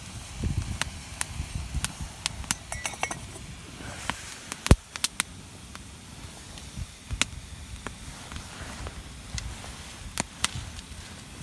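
Log campfire crackling, with irregular sharp pops and snaps from the burning wood; the loudest snap comes about halfway through.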